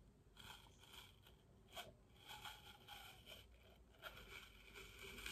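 Faint scraping and crunching of teeth working at a whole, unpeeled apple that is hard to bite into, in short irregular bouts.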